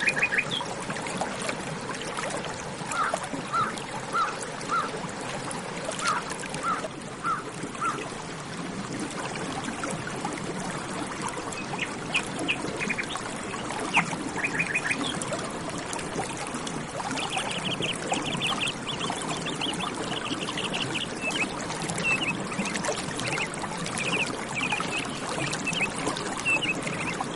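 Running water flowing steadily, with birds calling over it: a run of short repeated notes in the first few seconds, then a busier series of high chirps through the second half.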